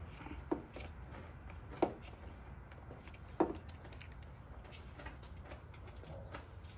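Three sharp clicks, about a second and a half apart, with fainter ticks between: a hand tool knocking on the fasteners and bodywork of a Kawasaki ZH2 motorcycle. A low steady hum sits underneath.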